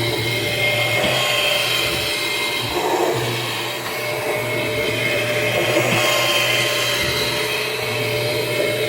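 Kirby G6 upright vacuum's motor running steadily with a whine, its pitch holding level.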